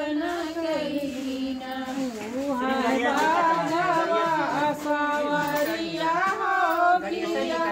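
Women's voices singing a Bhojpuri devotional song (bhajan) in long, gliding held notes, without instruments.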